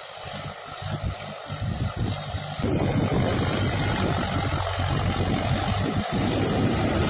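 Mahindra 575 DI tractor's four-cylinder diesel engine running steadily under load while pulling a cultivator through the soil. It grows louder about three seconds in as the tractor comes close.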